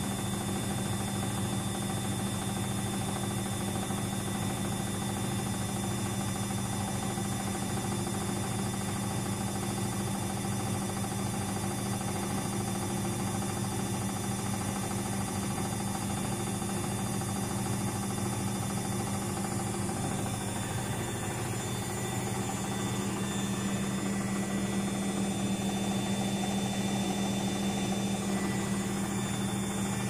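Luxor WM 1042 front-loading washing machine running its spin with an unbalanced load: a steady motor hum with a constant tone, growing slightly louder in the last few seconds.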